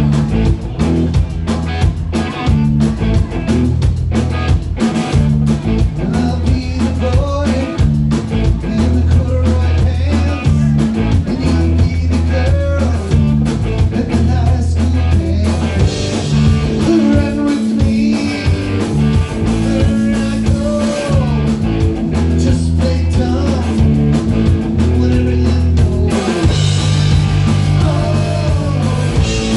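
Live rock band playing: electric guitar, bass guitar and drum kit with a man singing into a microphone.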